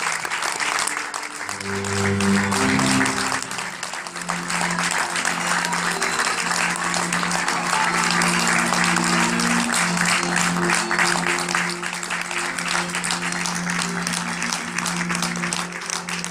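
Audience applauding steadily over music with long held low notes.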